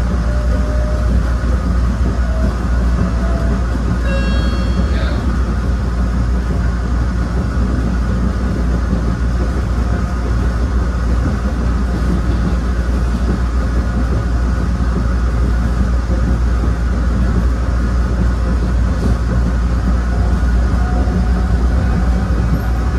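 1993 ABB N5 electric railcar running along the line: a steady, loud rumble of motors and wheels on the rails. About four seconds in, a brief high-pitched tone sounds for about a second.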